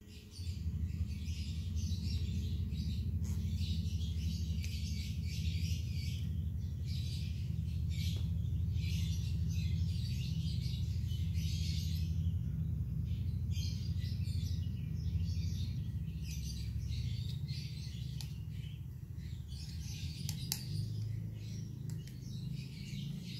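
Birds chirping and twittering continuously in an irregular chatter, over a steady low hum.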